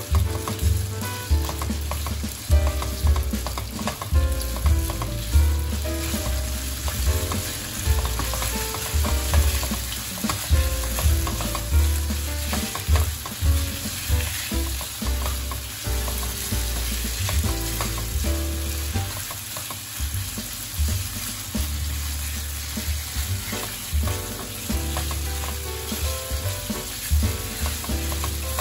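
Pork slices sizzling in hot oil in a nonstick frying pan, with a spatula stirring, scraping and tapping against the pan in repeated strokes as the pieces are turned and lifted out.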